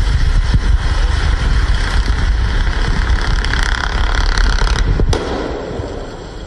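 An off-road vehicle driving hard through a mud and water pit, engine running with a deep rumble that fades about five seconds in.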